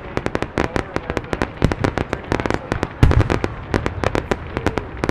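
Fireworks crackling, with many rapid sharp pops, and one deep boom from a shell bursting about three seconds in.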